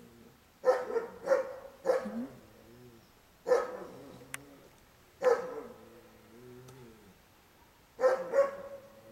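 Big mastiff-type dogs, a Boerboel and a Tosa Inu, barking in rough play. There are about seven deep, sharp barks in clusters, three near the start, single ones in the middle and two near the end, each trailing off into a low wavering growl or moan.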